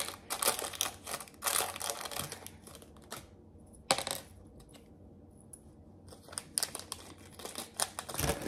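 Small clicks and light clinks from handling small jewelry packaging and earrings, with light rustling. There is one sharp click about four seconds in and a quieter stretch after it, then more handling near the end.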